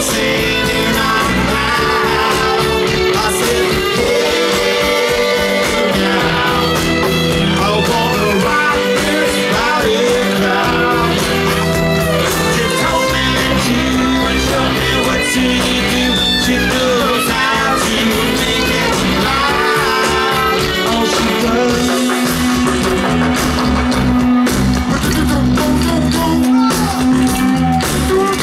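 Live rock band playing: electric guitar and bass, with the lead line bending in pitch over a sustained low part.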